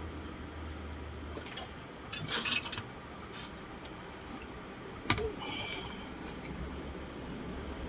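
Light clicks and clatter of small tools and parts being handled on an electronics repair bench: a short cluster of clicks about two seconds in and one sharp click about five seconds in, over a low hum.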